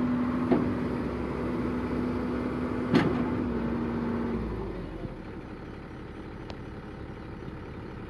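Komatsu hydraulic excavator's diesel engine running with a steady hum, with a sharp metallic clank about three seconds in. The hum stops about four and a half seconds in and the engine sound drops much quieter.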